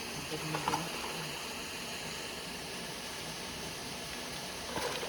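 Steady rushing of a waterfall's flowing water, an even hiss with no change, with faint voices under it near the start.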